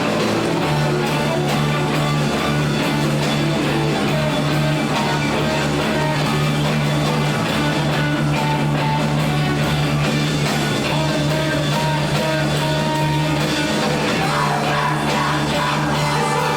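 Loud live rock music with electric guitars, running steadily.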